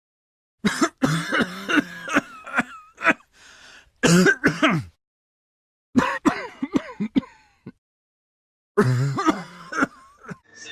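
A person's voice making short non-speech sounds in four separate bursts, each cut off into dead silence.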